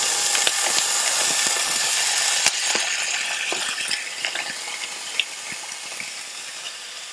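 Raw ground beef (15% fat) sizzling as blocks of it are laid into a hot skillet on medium-high heat. There is a loud hiss with scattered crackles and pops, and the hiss fades steadily as the meat starts giving up its water.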